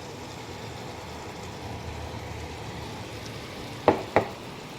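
A steady hiss, with two sharp knocks close together near the end.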